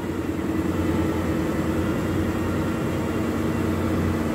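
Steady machine hum with a few constant low tones and no change in level.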